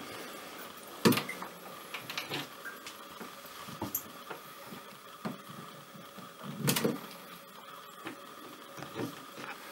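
A few light knocks and clicks at uneven intervals, the strongest about seven seconds in, over a faint steady electrical whine.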